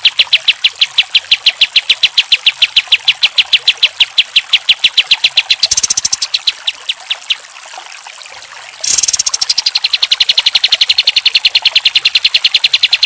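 Kapas tembak, a caged bulbul, singing a fast, even rattle of repeated chip notes, about seven a second. The notes thin out and break off a little past halfway, then resume abruptly and densely about nine seconds in.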